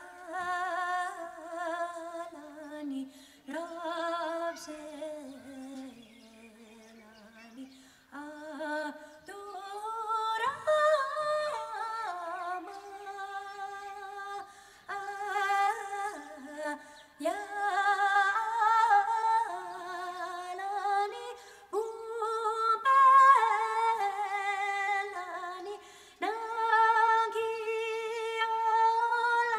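A solo woman's voice singing without accompaniment in long held notes that slide from pitch to pitch, dipping lower and quieter about six to eight seconds in.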